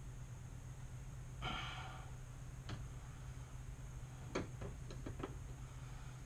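Quiet shop background with a steady low hum, one short breathy hiss about one and a half seconds in, and a few light clicks near the end.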